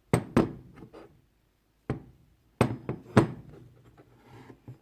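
Metal hand wrenches knocking and clanking as they are picked up and set down: a run of sharp knocks, the loudest about three seconds in.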